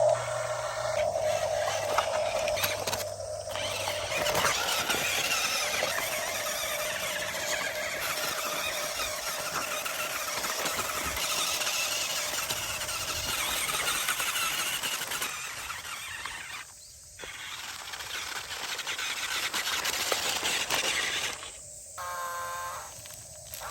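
Small electric gear motors of a toy remote-control excavator working, giving a high squeal over a steady whine, with a couple of short drops near the end.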